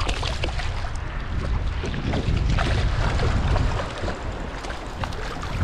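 Wind buffeting the microphone in a strong rumble, with water splashing and spattering as a hooked corvina thrashes at the surface in the shallows.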